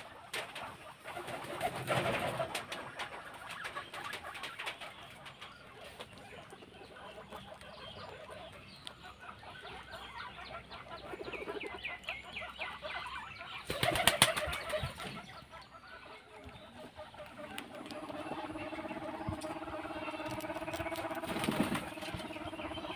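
Domestic pigeons cooing, with a short burst of wing flapping about two-thirds of the way through.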